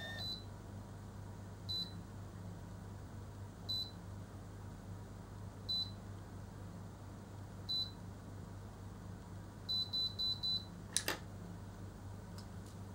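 Automatic hair curler beeping once every two seconds while a lock of hair is held in its heated chamber, then four quick beeps signalling the curl is done, followed by a sharp click about eleven seconds in as the curler is opened.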